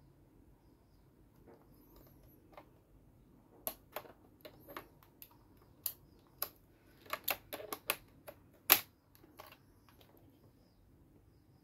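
Hard plastic parts of a toy Amazons Driver belt clicking and clacking as its red grip handle is handled and fitted into the buckle: a few quiet seconds, then a quick run of sharp clicks, the loudest one about three-quarters of the way through.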